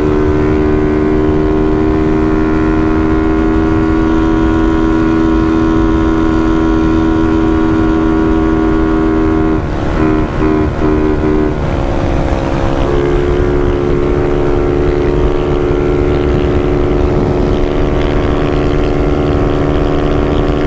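Motorcycle engine running flat out at high, steady revs, with wind rushing past. About ten seconds in the note stutters on and off for a second or two, then it settles back to a steady note at a slightly different pitch.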